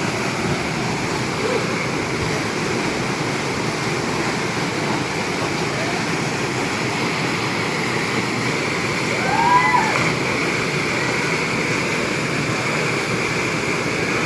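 Waterfall rushing steadily. About two-thirds of the way in there is a brief pitched call.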